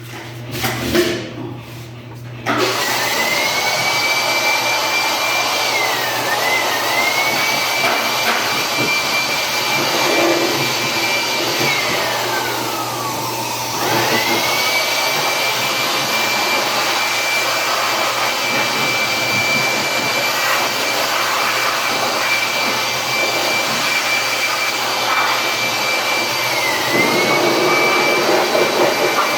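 An electric dryer's motor and fan switch on a couple of seconds in and run with a loud rushing of air and a steady high whine. About halfway through, the whine falls away as the motor slows, then jumps back up as it starts again at full speed.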